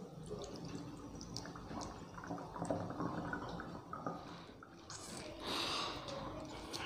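Crushed black grapes squeezed by hand through a cloth in a funnel: faint wet squishing and juice dripping, with a brief louder rush of sound about five seconds in.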